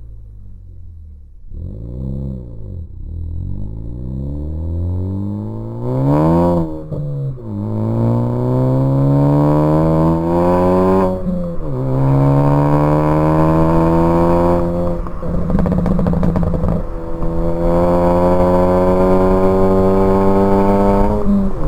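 2014 Ford Focus ST's 2.0-litre turbocharged four-cylinder, tuned and run through a catless downpipe and cat-back exhaust, accelerating hard through the gears: the engine note climbs steadily in pitch and drops sharply at each upshift, about four times. Short pops and crackles come from the exhaust around the throttle lifts, after a quieter low-revving start and a quick rev about six seconds in.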